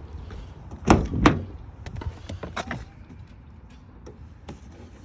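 Two loud knocks in quick succession about a second in, followed by scattered light clicks and knocks.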